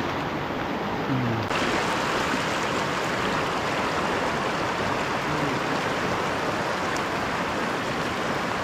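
Fast, shallow river rushing steadily over rocks and stones.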